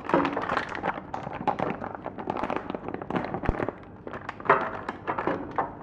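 Flour packet crinkling and crackling as it is opened and handled, with irregular taps.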